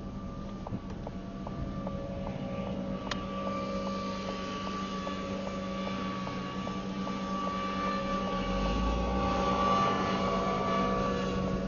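A vehicle running steadily, a constant hum with a faint regular ticking of about three ticks a second, getting slightly louder toward the end.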